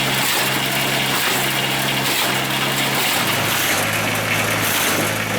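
Small engine running steadily, its note dropping slightly about three seconds in.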